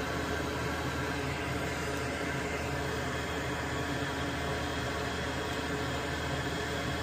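Steady hum and hiss of a running fan, with no change in level.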